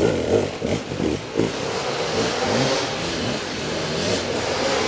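Dirt bike engines working under load on a steep climb. The throttle opens and closes in sharp rises and falls for the first second or so, then the engine holds a steadier note.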